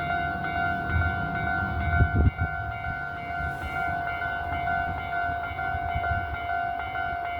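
Japanese railway level-crossing alarm ringing steadily with its electronic bell tone while the crossing is closed. A Hankyu train rumbles over the crossing underneath it, with a loud knock about two seconds in.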